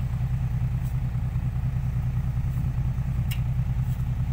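Diesel engine of a tipper truck idling steadily with an even low rumble, and one faint click about three seconds in.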